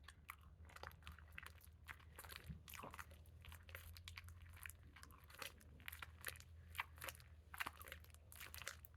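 Sticky glue slime being mixed and worked, giving faint, irregular little crackles and squelching clicks. The slime is still too sticky and needs more activator.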